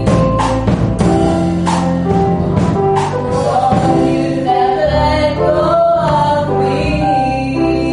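Gospel song with voices singing over instrumental accompaniment and percussion strokes that keep the beat. The singing holds long, wavering notes in the second half.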